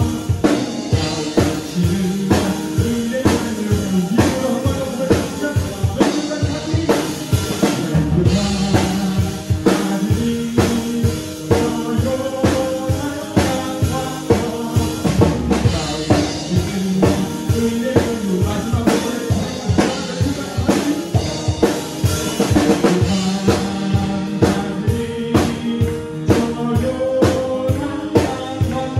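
A drum kit is played live along to a recorded song with singing. Snare, bass drum and cymbal hits keep a steady beat over the music.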